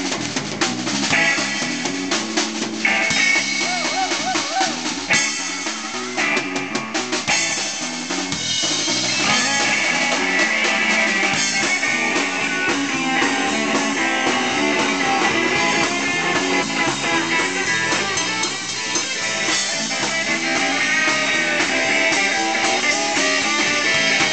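A live rock band playing, with an amplified electric guitar over a drum kit beating a steady rhythm.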